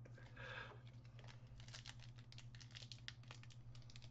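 Faint crinkling and scattered soft clicks of trading cards and their foil pack wrapper being handled, over a low steady hum.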